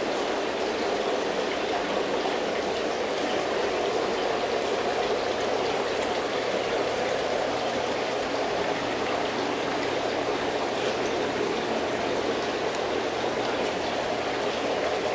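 Steady rushing of circulating water in a large aquarium tank, with a faint low hum underneath.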